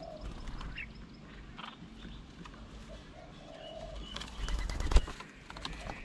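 Doves cooing low, with small birds chirping higher. About four seconds in a quick flutter of wings rises to a sharp knock as a dove lands on the wooden table.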